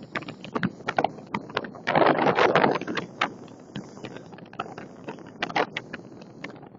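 Strong wind buffeting the microphone in crackling gusts over the rush of a stormy sea, with a louder rush about two seconds in.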